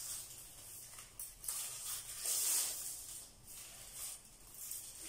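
Thin black plastic sheeting rustling and crinkling as strips of it are handled and folded by hand, in irregular bursts.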